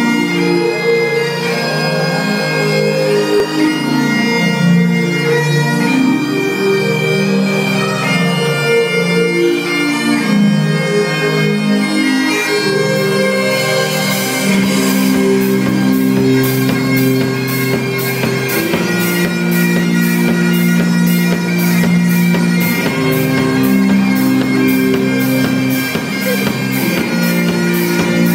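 Great Highland bagpipes playing a melody over their steady drones. About thirteen seconds in, the band comes in beneath the pipes with bass guitar and a steady drum beat.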